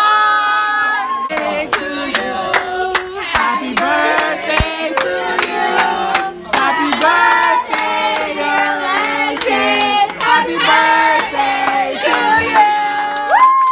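A group of people singing together, with hand claps in a steady beat running through the song.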